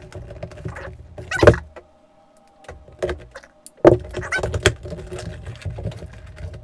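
Cardboard retail box being handled and opened by hand: scraping and rustling of the packaging with sharp clicks and knocks. A loud one comes about a second and a half in and another near four seconds, with a short lull between.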